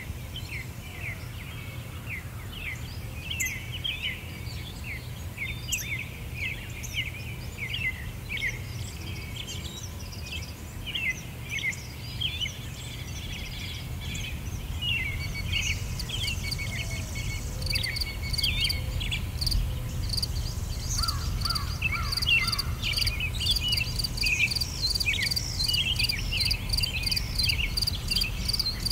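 Small birds chirping in many short calls over a steady low rumble. About two thirds through, a fast, even, high-pitched pulsing joins in and the sound grows a little louder.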